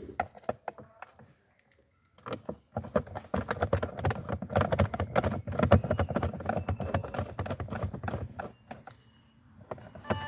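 Rapid, irregular clicking and knocking of hard plastic dashboard trim and tools being handled, for about six seconds, starting about two seconds in.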